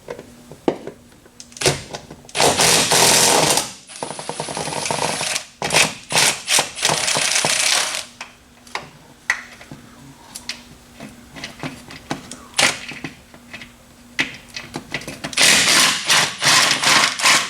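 An impact wrench hammering in several bursts, with a few seconds of clicks and clinks between them and another burst near the end: bolts being run loose during a transmission removal.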